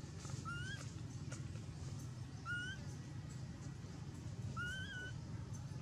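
Macaque coo calls: three short, high, slightly rising whistle-like calls about two seconds apart, over a steady low background rumble.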